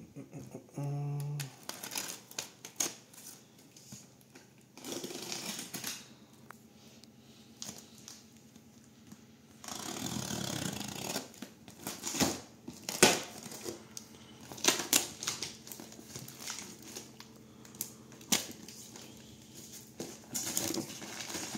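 A small blade slitting packing tape and plastic film on a cardboard box, with scraping, crinkling of the plastic and rustling of the cardboard flaps as they are pulled open. It comes in irregular strokes and rustles, broken by a few sharp clicks and knocks.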